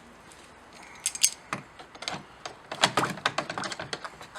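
Hot forged steel candle holder clinking and rattling against its container as it is dunked and flipped in quench oil, a quick run of sharp metallic taps from about a second and a half in. The oil barely sizzles.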